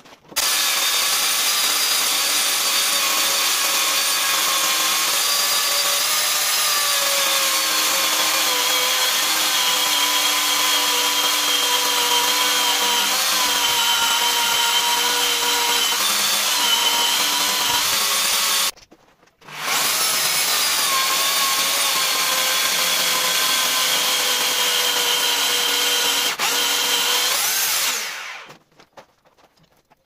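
Dnipro-M DSE-24DS corded electric chainsaw, 40 cm bar, mounted on a homemade frame sawmill, running steadily while it rips lengthwise through a walnut log. It starts about half a second in, cuts out for under a second about two-thirds of the way through, starts again and winds down near the end.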